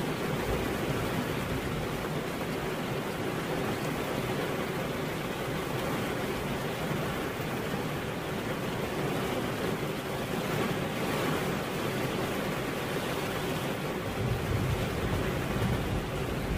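Steady rain falling, an even hiss with no breaks. A low rumble swells about three seconds before the end.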